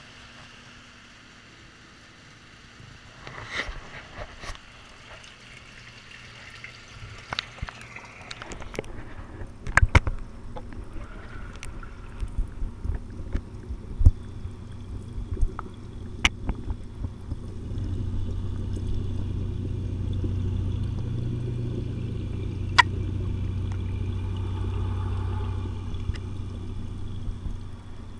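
Water sloshing and trickling around a camera as it goes into a tilapia aquaponics tank, with scattered knocks and clicks of the camera being handled. Later the sound turns into a muffled, steady low underwater rumble with an occasional knock.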